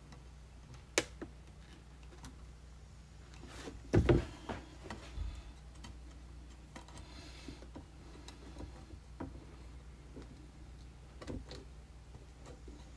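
Hands working a zip tie through a hole in a plastic laundry jug and a wooden paint stick: scattered light clicks and knocks of plastic and wood. The loudest is a cluster of knocks about four seconds in, with a brief rustle around seven seconds.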